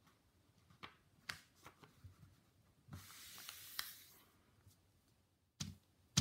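A sheet of paper being folded and creased by hand on a wooden tabletop: light taps and crinkles, then about a second of paper sliding and rubbing as it is smoothed flat, and a thump near the end.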